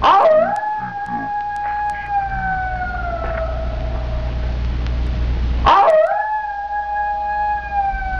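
Two long howls about six seconds apart. Each starts sharply, then holds one note that slowly falls in pitch, over a steady low rumble.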